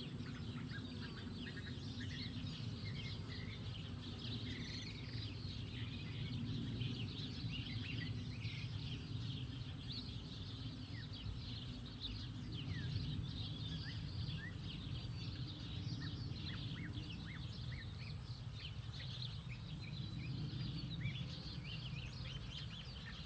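Steady low hum of many worker honeybees foraging, with many short bird chirps scattered over it.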